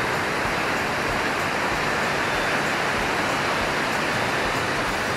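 Kakabeka Falls, a waterfall, giving a steady, even rush of falling water.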